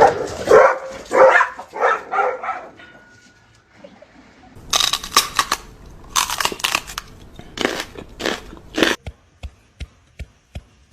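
A dog barking: a quick run of short barks, then a few harsher, noisier bursts. Near the end come sharp ticks, about two a second.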